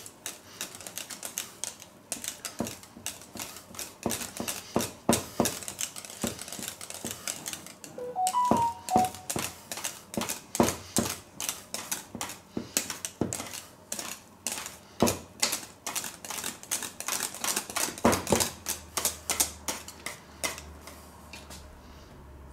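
Wire balloon whisk beating a thick creamy filling in a stainless steel bowl, its wires clicking against the metal side several times a second in an uneven rhythm. About eight seconds in, a few short high tones sound briefly. The clicking stops shortly before the end.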